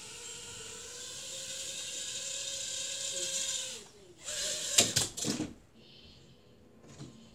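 A small electric motor whirs steadily with a hiss for about four seconds, its pitch sagging as it winds down and stops. Then come a few sharp knocks and clatters.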